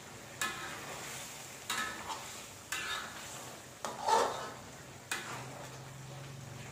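A long metal spoon stirring thick egg sambal in a metal wok as it cooks down: five scraping strokes about a second apart, each with a clink against the pan, the loudest about four seconds in, over a soft hiss from the pan.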